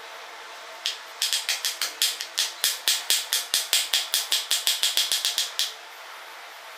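Kitchen knife chopping bitter gourd on a wooden cutting board: a quick, even run of about six chops a second that starts about a second in and stops about a second before the end.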